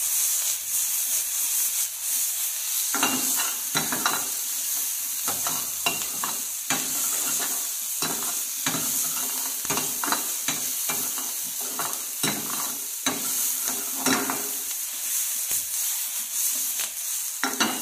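Diced onion, garlic and yellow and green capsicum sizzling steadily in olive oil in a stainless steel frying pan, with frequent scrapes and knocks of a steel ladle against the pan as the vegetables are stirred and tossed.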